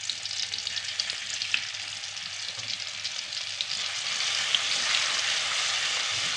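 Hot cooking oil sizzling and crackling in a frying pan, ready for sautéing. The sizzle grows somewhat louder about four seconds in.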